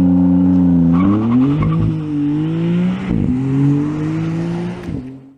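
Maserati MC20's twin-turbo V6 engine accelerating hard. It holds one steady note, then about a second in climbs in pitch three times with a drop between each, as at upshifts, and cuts off just before the end.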